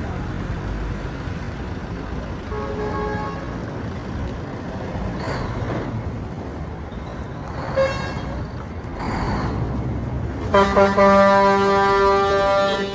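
Congested road traffic rumbling steadily, with vehicles passing close by. A short horn toot sounds about three seconds in and another near eight seconds, then a loud vehicle horn blares for about two seconds near the end.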